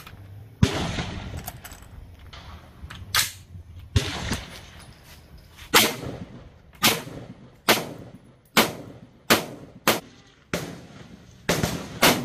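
About a dozen single gunshots on an outdoor firing range, each with a short echo. They are spaced a few seconds apart at first, then come at roughly one a second from about halfway in.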